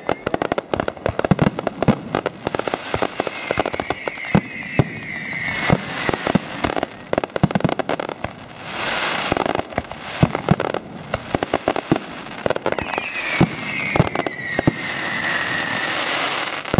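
Aerial fireworks shells bursting in rapid succession, heard from about a quarter mile away: many sharp bangs with dense crackling, a stretch of thick crackle about halfway through, and a high wavering whistle in the last few seconds.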